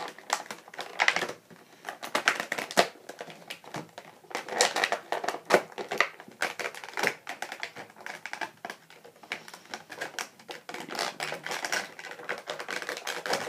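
Action figure being worked out of its plastic packaging tray by hand: a dense, irregular run of clicks, snaps and crinkles of plastic.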